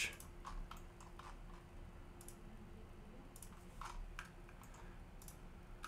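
A few faint, scattered clicks of a computer mouse, spread unevenly over several seconds, over quiet room tone with a faint steady hum.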